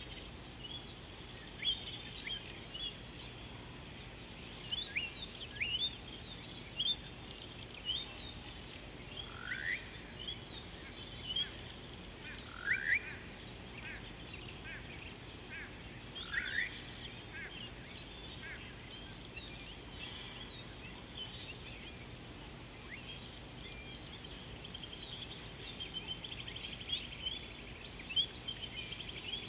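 Birds calling: many short, high chirps and whistles scattered throughout, with three louder rising whistled calls between about ten and seventeen seconds in, over a steady faint background hiss.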